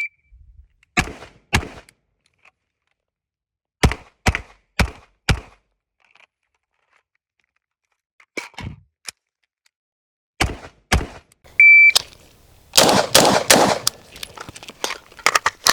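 Shot timer beep, then gunshots in strings: two shots about a second in, four quick shots about half a second apart around four to five seconds, two more near ten and a half seconds, a second timer beep, and a rapid flurry of loud shots near the end. This matches a rifle-to-pistol transition drill.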